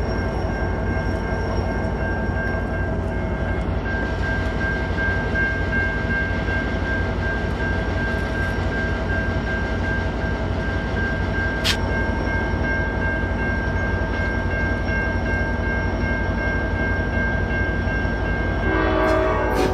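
NCDOT F59PHI diesel-electric locomotive passing close by at the head of a passenger train, its engine and the rolling train making a steady heavy rumble. A single sharp click comes about twelve seconds in, and a short horn-like tone starts near the end.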